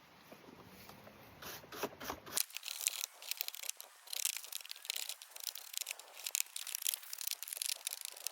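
Caked grass clippings being scraped off a lawnmower: quick, irregular scratching strokes that start about two seconds in and keep going.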